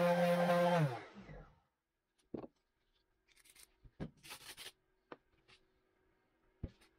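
Cordless random orbital sander running with a steady hum, then switched off about a second in and spinning down. Afterwards come a few light knocks and short rustles as the hook-and-loop sanding disc is handled on the pad.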